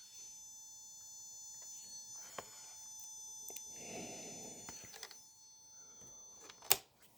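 Coin-battery audio oscillator, modified with an extra resistor, sounding a faint steady high-pitched electronic tone of several pitches at once, the main one near 6.9 kHz. A sharp click comes near the end.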